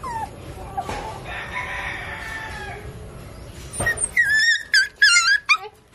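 A rooster crows about a second in, one drawn-out call. Near the end come louder, high, wavering whines from the hungry Shih Tzu puppies.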